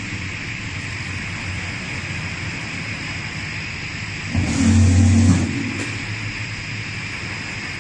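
Automatic thin-blade slitter scorer for corrugated board running: a steady mechanical hiss with a faint high whine. About four and a half seconds in, a louder low hum rises for about a second, then drops back.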